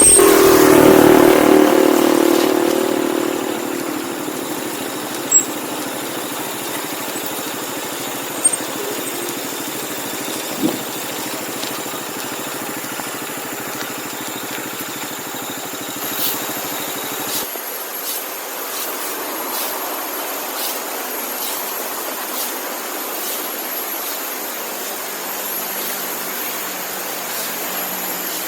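Motorcycle engine sound dying away over the first two or three seconds, then a steady hiss with a few sharp clicks.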